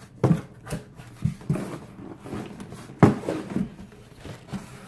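Shoebox being pulled out of a corrugated cardboard shipping carton: cardboard scraping and rustling with a handful of short knocks, the loudest about three seconds in.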